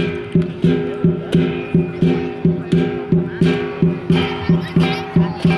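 Lion dance percussion: a big drum beaten in a steady, driving rhythm, several strokes a second, with cymbals crashing on the main beats.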